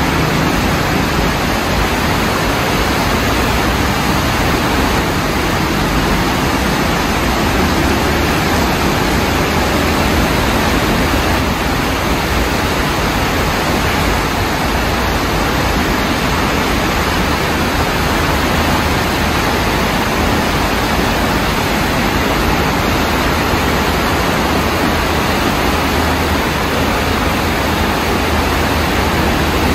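Floodwater rushing through an urban stream channel swollen by heavy rain, a steady loud rush of churning water.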